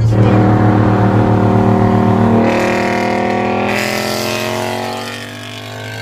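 Cars at full throttle in a roll race, heard from inside one of them: an engine note climbing steadily in pitch, breaking twice as the gears shift, then fading and dying down near the end, over a steady low cabin drone.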